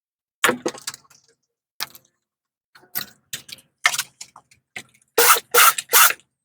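Irregular sharp clicks and clanks of tools and metal parts being handled, about a dozen over several seconds, with the loudest cluster near the end.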